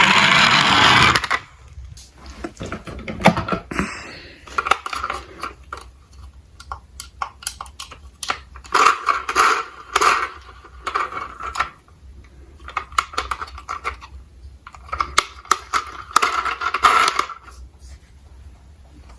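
A siren sound cuts off about a second in. After it, small diecast metal toy cars clink, click and rattle in several uneven bursts as they are handled and rolled.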